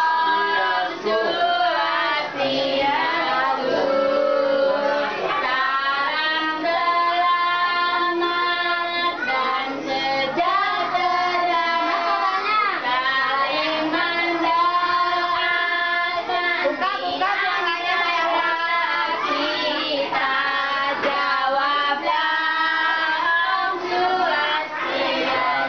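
Young children singing a song, their voices holding long notes between shorter sung phrases.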